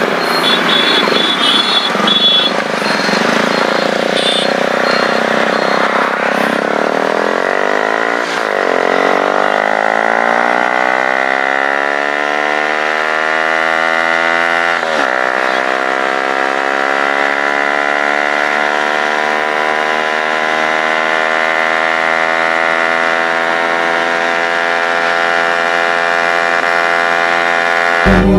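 Motorcycle engine accelerating through the gears: the revs climb, drop sharply at an upshift about eight seconds in and again about fifteen seconds in, then rise slowly and hold steady at cruising speed. Before the pull, a jumble of voices and other bikes' engines.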